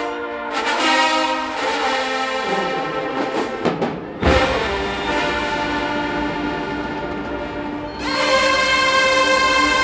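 HBCU marching band brass playing held chords, with a sharp drum hit about four seconds in and a louder sustained chord near the end.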